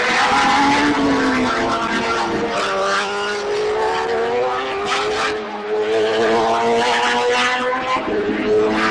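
Formula 3000 race cars' 3-litre V8 engines running at high revs, several at once, their pitch rising and falling as they pass through the corners.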